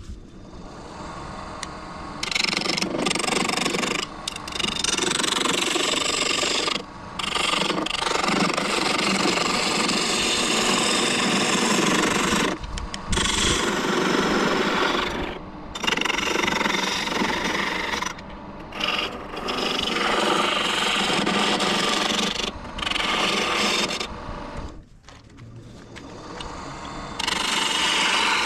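Lathe gouge cutting a spinning glued-up hardwood furniture leg, which the turner takes for maple: a loud, rough scraping, broken by short pauses every few seconds. The cut is rounding the piece back to true because it was mounted off-centre.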